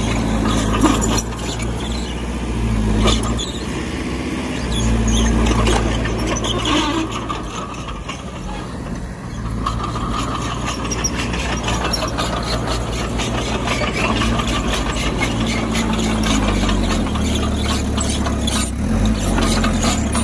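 Heavy earthmoving machinery running steadily, with squealing and a dense run of metallic clicks and clanks over the engine drone.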